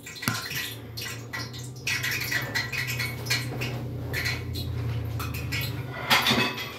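Dishes clattering with scattered clinks and knocks as a plate is taken out, over a steady low hum.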